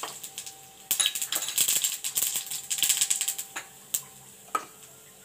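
Mustard seeds spluttering in hot coconut oil in a frying pan. A dense run of crackling pops starts about a second in and lasts about two seconds, then thins to a few scattered pops.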